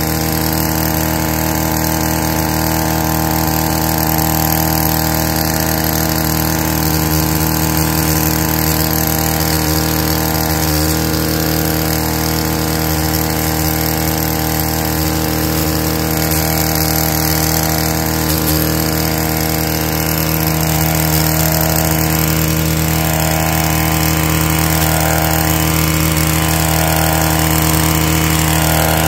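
Stihl KM131R KombiSystem power head's small four-stroke (4-MIX) engine running at a steady speed, driving the FH-KM hedge trimmer cutter bar. There are a few short clicks in the middle.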